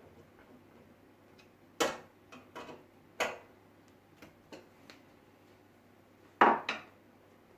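Hard drive being screwed into a metal PC case's drive bay: a series of sharp metal clicks and knocks, the loudest about two seconds in, about three seconds in, and a double knock near the end.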